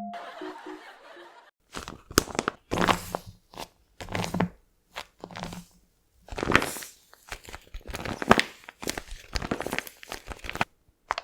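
Paper crinkling and crunching in irregular bursts as it is squeezed and handled, starting about a second and a half in.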